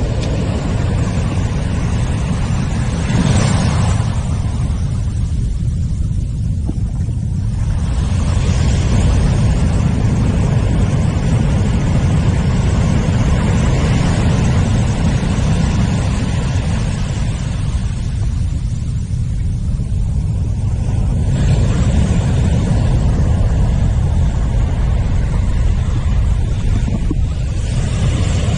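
Wind buffeting the camera's microphone as a steady low rumble, over the wash of surf, which swells a few times as waves run up the beach.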